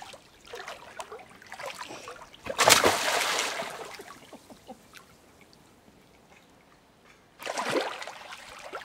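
A child plunges from the pool ladder into the water with a loud splash about two and a half seconds in, then swims in armbands with water splashing and sloshing softly. A second burst of splashing comes about seven and a half seconds in.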